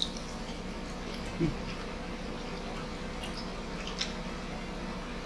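Quiet hand-eating sounds: fingers working rice and food on a banana leaf, a few faint soft clicks, over a steady low hum. A brief low murmur comes about a second and a half in.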